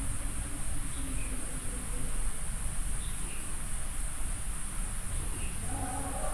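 Steady high-pitched insect chorus over a low rumble. Near the end a low steady hum with several pitches comes in.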